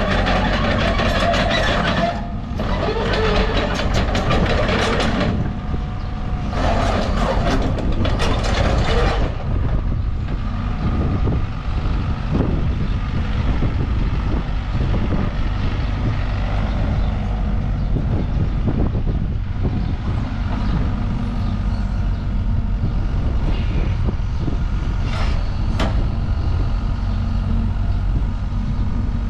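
Volvo EC55D midi excavator's diesel engine running steadily while the machine tracks and works its boom, with two long rushing bursts in the first nine seconds and scattered knocks and clanks after.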